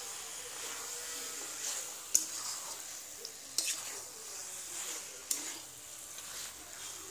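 Raw chicken being stirred into sizzling masala in a steel kadhai with a metal spoon: a steady sizzle with the spoon scraping and clacking against the pan three times.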